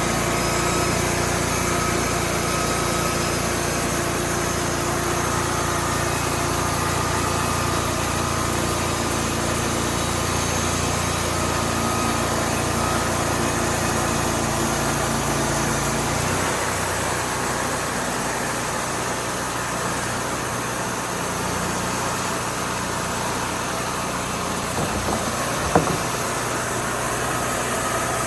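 Wood-Mizer band sawmill's engine running steadily. About 16 s in its low hum drops and the sound changes, and there is a single sharp knock near the end.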